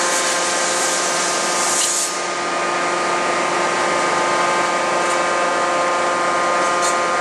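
Hydraulic die forging hammer and forge machinery running steadily, with no hammer blows: a steady hum of several fixed tones under a hiss. A brighter high hiss stops about two seconds in.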